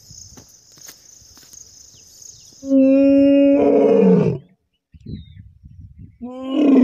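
Asiatic lion roaring twice. Each roar opens as a steady moaning tone, then breaks into a rough roar that falls in pitch. The first, about three seconds in, cuts off abruptly, and the second begins near the end.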